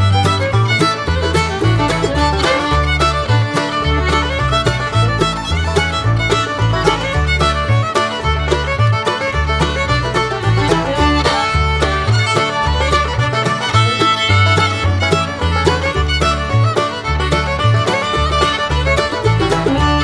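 Background music: an upbeat bluegrass-style tune with fiddle over a walking bass and plucked strings.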